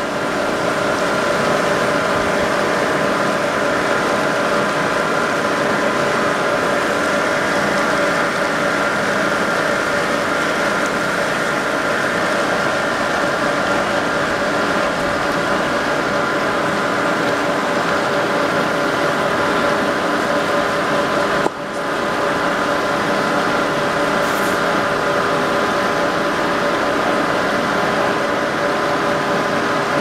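Steady machine hum with several held tones over a wash of rushing water, unbroken except for a brief drop about twenty-one seconds in.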